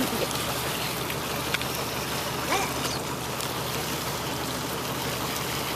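Sea water rushing and trickling steadily around a fishing net being hauled in alongside a boat, with a faint click about a second and a half in.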